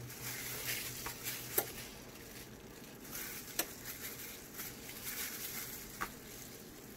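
Plastic food-prep gloves crinkling and rustling as hands work stuffing into a salmon fillet's pocket, with three light clicks spread through the handling.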